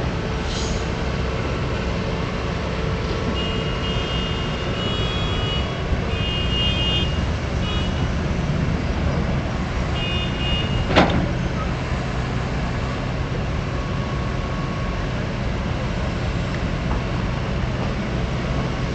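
Diesel engine of an excavator running steadily under operation. Short runs of high electronic beeping come and go in the first half, and there is one sharp knock about eleven seconds in.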